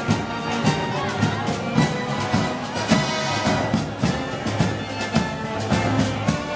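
Moros y Cristianos festival band music: brass playing over drums that keep a steady beat.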